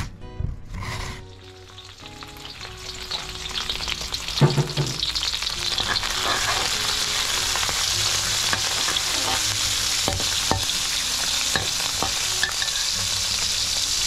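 A stroke of raw green mango across a shredding grater in the first second, then dried shrimp frying in oil in a wok. The sizzle builds over the first few seconds and holds steady, with a few clicks of a metal spatula stirring.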